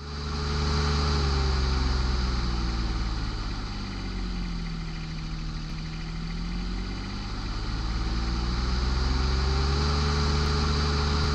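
An engine running steadily, its pitch sinking slowly toward the middle and climbing back to where it began.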